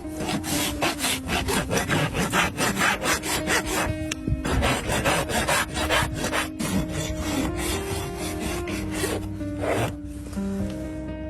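Farrier's rasp filing a horse's hoof in repeated strokes, about three a second, with a brief break about four seconds in.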